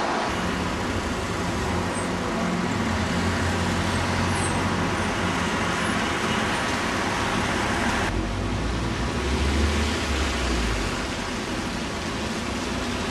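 A distant passenger train running across a brick viaduct, heard as a steady low rumble under traffic hum. About eight seconds in the sound cuts suddenly to a street queue of cars and a bus, and a deep engine rumble rises for about three seconds and then eases.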